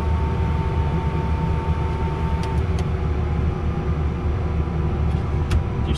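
Turbofan engines of a Cessna Citation business jet running during engine start, heard inside the cockpit as a steady low rumble and hum. A thin steady tone stops with a click about two and a half seconds in, and a couple of switch clicks follow near the end.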